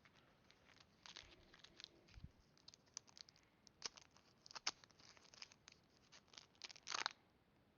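Foil wrapper of a Pokémon trading-card booster pack being torn open and crinkled. It comes as faint scattered crackles, with a louder crackle near the end.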